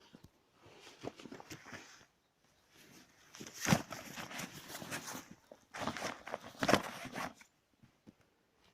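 Rustling and scuffing in three stretches, with a couple of sharper knocks, the loudest about a third of the way in.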